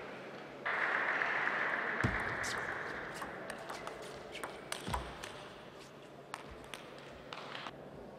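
Table tennis rally: a string of sharp clicks as the celluloid ball is struck by rubber-covered paddles and bounces on the table, with a few low thuds of the players' feet on the floor. Early on, fading crowd applause.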